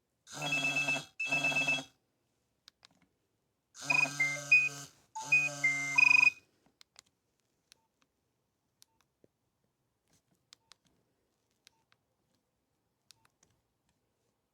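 Nokia 3120 mobile phone playing short snatches of its polyphonic ringtones: two brief repeated phrases near the start, then a different pair of phrases about four seconds in. After that only faint ticks are heard.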